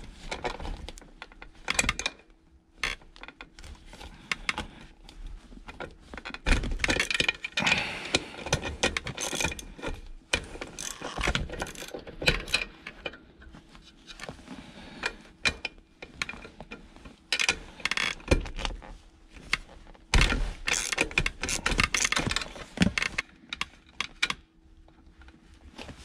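Small metal hand tools working the parking brake cable adjusting nuts at the handbrake lever of a BMW E21: irregular clicks, ticks and clinks as the nuts are turned off the threaded cable ends, busiest about a third of the way in and again near the end.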